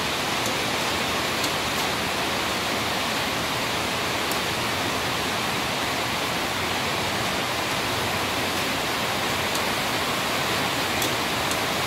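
A steady rushing noise, with a few light clinks of a metal ladle as chicken soup is scooped from an aluminium pot into a bowl.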